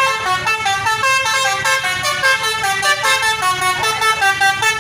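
Bus telolet horn, a multi-tone musical air horn, playing a fast tune of short notes that change pitch several times a second, over the bus's low engine rumble.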